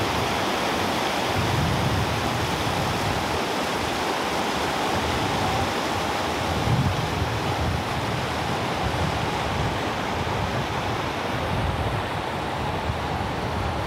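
Fast-flowing river rushing steadily over rocks, with an uneven low rumble underneath.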